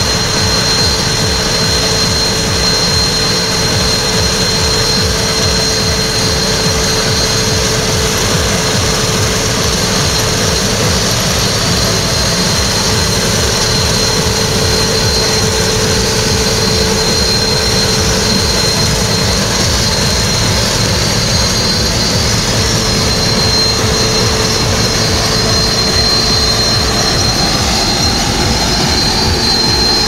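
Claas Lexion combine harvester running under load while cutting rapeseed: a steady, loud engine and threshing drone with a constant high whine, growing a little louder near the end.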